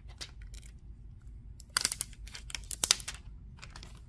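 Protective plastic film being peeled off a Samsung Galaxy Note 9 and handled, crinkling and crackling in short irregular bursts, loudest about two seconds in.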